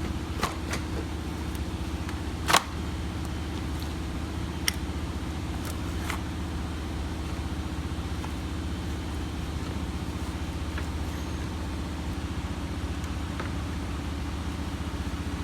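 A steady low mechanical hum, with a few sharp clicks and knocks from the plastic condenser fan assembly being worked loose and lifted out, the loudest knock about two and a half seconds in.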